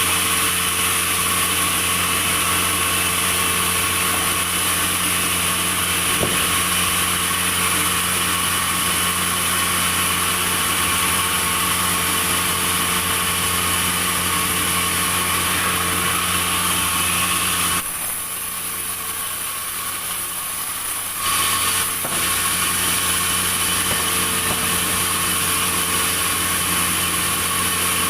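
Sawmill machinery running steadily, a constant engine-like hum with a high hiss; about eighteen seconds in the higher sound drops away for some three seconds and then returns.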